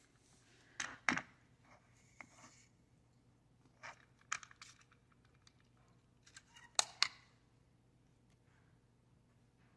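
A few sharp plastic clicks and knocks from handling a Hertzko self-cleaning slicker brush over a wooden floor, its wire-retract button pressed so a wad of dog hair drops off. The loudest clicks come in pairs, about a second in and about seven seconds in.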